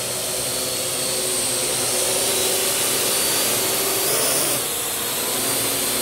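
Parrot AR Drone 2.0 quadcopter's four electric rotors buzzing steadily in flight while lifting a 100-gram weight. The pitch rises briefly about four seconds in, then drops as the drone is maneuvered.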